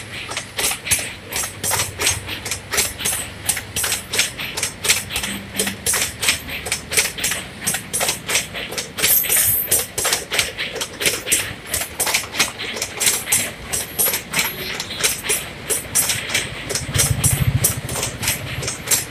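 Passenger coach wheels clattering over rail joints as the train crosses a steel girder bridge: a rapid, steady run of metallic clicks and knocks. A low drone swells briefly near the end.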